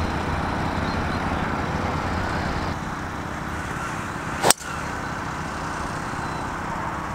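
A golf driver striking a teed ball: one sharp crack about four and a half seconds in, over a steady low background rumble.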